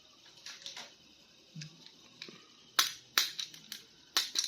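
Plastic toy packaging and figures being handled: a series of sharp clicks and crackles, the loudest pair about three seconds in.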